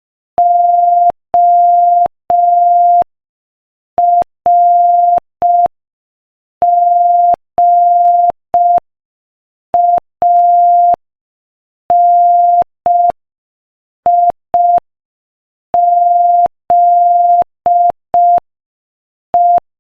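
Morse code at 5 words per minute: a single steady beep keyed on and off in long dashes and short dots, with longer silences between letters. The pattern spells O-R-G-A-N-I-Z-E.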